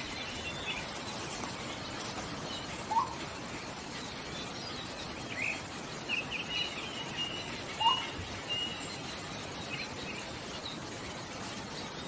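Blue-throated motmot calling: two short, low single notes about five seconds apart, the loudest sounds here, with softer, higher chirps and trills from other birds behind them.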